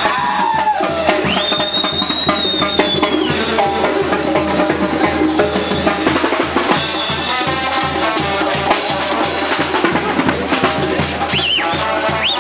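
Banda music: held wind-instrument notes over drum kit, bass drum and snare keeping a steady dance beat.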